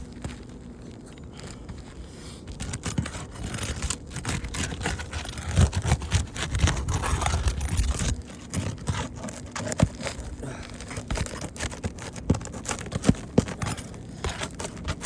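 Asphalt roof shingles scraping and crackling as a roof snake is worked under them to pry the damaged shingle loose, with many irregular clicks and knocks. The noise grows heavier about six to eight seconds in.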